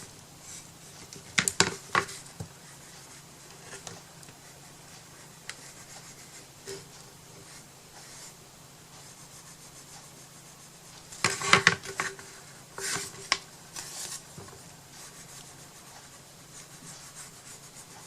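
Rubbing on a wooden box, with two short clusters of knocks and clatter, one about a second and a half in and another from about eleven to fourteen seconds in.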